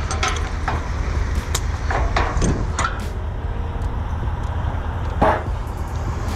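Vehicle engine idling with a steady low rumble, with scattered sharp clicks and knocks over it, the loudest about five seconds in.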